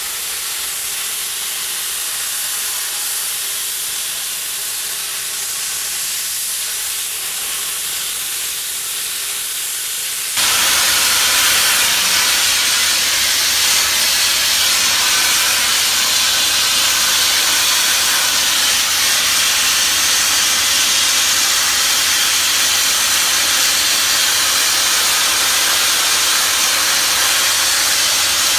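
High-pressure spray nozzle blasting old paint off the steel side of a caboose: a steady hiss that gets louder and fuller about ten seconds in.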